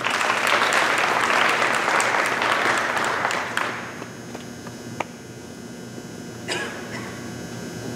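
A small audience clapping for about three and a half seconds, then dying away. A single sharp knock comes about five seconds in, and a softer thump a little later.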